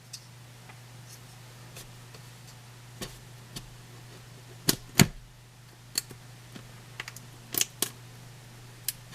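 A knife and a shrink-wrapped cube box being handled while the plastic wrap is slit with a small incision: scattered sharp clicks and small knocks, the loudest about five seconds in, over a steady low electrical hum.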